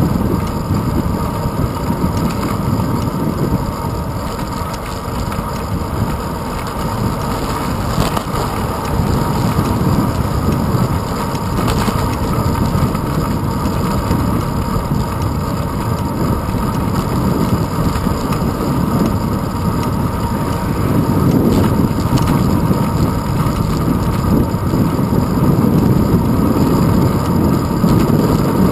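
Steady rushing wind and road rumble on a handlebar-mounted camera's microphone while riding a bicycle along a paved road, growing somewhat louder in the last third.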